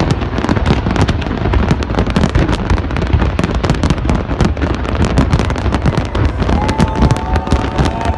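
A long string of firecrackers going off in a dense, continuous rapid crackle of sharp bangs, many per second.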